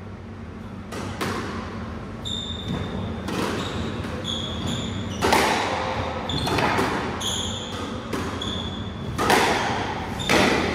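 Squash rally: the ball is struck by rackets and hits the court walls about every one to two seconds, each hit ringing in the enclosed court. Short high squeaks of shoes on the wooden floor come between the hits.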